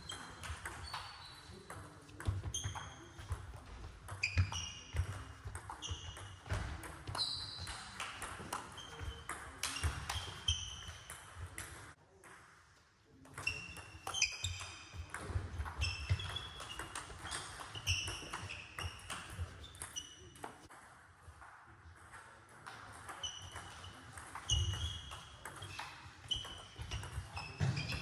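Table tennis rally: the ball clicking off bats and table in quick succession, with shoes squeaking on the sports hall floor. Play breaks off briefly about twelve seconds in, then the clicking starts again.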